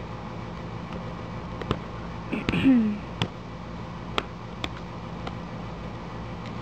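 Fingers working at the tuck flap of a cardboard camcorder box: several light cardboard clicks and taps, and about two and a half seconds in a brief, louder sound that falls in pitch, over a steady background hum.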